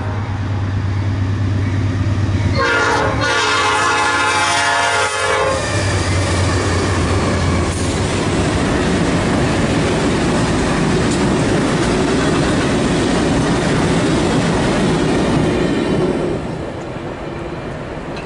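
A light engine move of diesel-electric locomotives, GE Dash 9-40CWs with one EMD SD60, running past with no cars behind. The lead unit's air horn sounds briefly at the start and again for about three seconds from two and a half seconds in, its pitch dropping as it passes, over the engines' low drone. Then the string of locomotives rumbles and clicks by on the rails, fading near the end.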